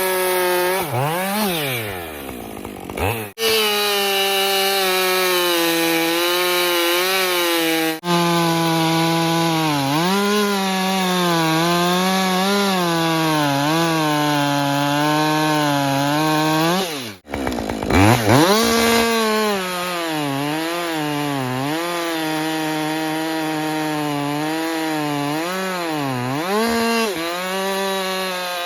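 Stock Husqvarna 550 XP Mark II two-stroke chainsaw running at full throttle while cutting through oak, the engine pitch wavering as it loads and unloads in the cut. Twice the revs drop away and climb back up as the throttle is let off and opened again.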